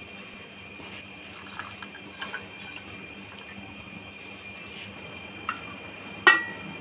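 Kitchen cooking sounds: a steady hiss with a constant high hum, a few light clatters, and one sharp clink with a short ring about six seconds in.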